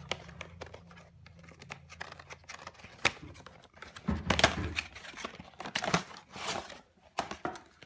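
Packaging crinkling and tearing as it is handled and opened, with scattered clicks and knocks, loudest in bursts about three, four and six seconds in.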